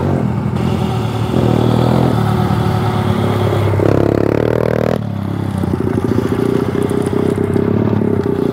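Dirt bike engine running as the bike rides off, its pitch rising about four seconds in, then settling into a steady, fast-pulsing note.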